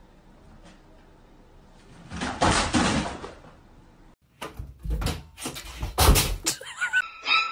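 A burst of noise lasting about a second, then several sharp bangs of a closet door being slammed, the loudest about six seconds in.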